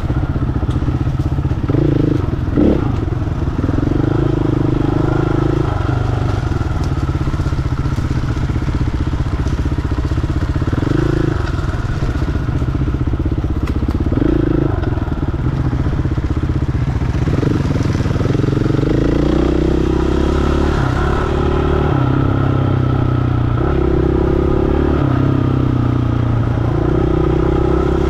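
KTM 500 dirt bike's single-cylinder four-stroke engine pulling through the low gears, its pitch climbing and dropping as the throttle is opened and rolled off every second or two. Occasional knocks and rattles from the bike over the rough ground.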